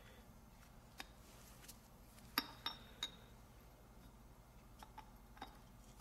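Faint metallic clinks and taps of an Ingersoll Rand IR231 impact wrench's air-motor cylinder and housing parts being handled and lined up. The three sharpest clinks, with a short ring, come close together about two and a half seconds in, and a few lighter ticks follow near the end.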